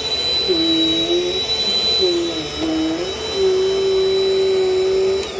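Dirt Devil Dynamite vacuum cleaner with a 7-amp motor running, with a steady high whine and a lower hum that shifts in pitch a few times. It is switched off near the end and the motor starts to wind down.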